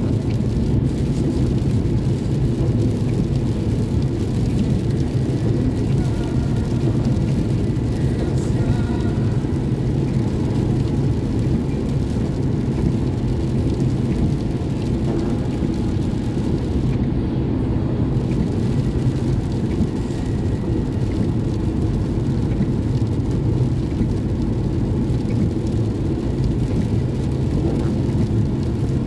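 Steady road noise inside a car driving at freeway speed in rain: engine and tyres running on wet pavement, a constant low rumble with no sudden events.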